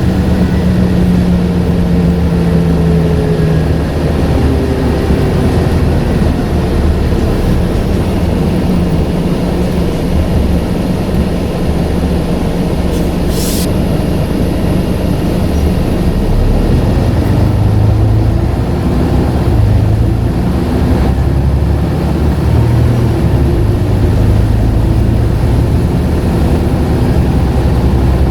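Scania N94UD double-decker bus's engine and ZF automatic gearbox running as the bus drives, the engine note rising and falling with speed and gear changes, with a faint turbo whistle. A short hiss about 13 seconds in.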